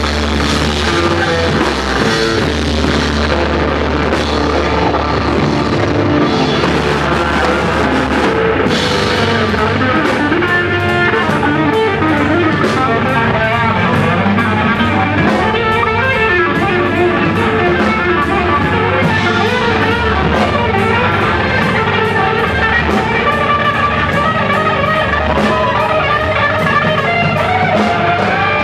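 Instrumental psych rock band playing live: electric guitar over fretless bass and drum kit. About a third of the way in the drums settle into a steady, even cymbal beat, and a guitar note slides upward near the end.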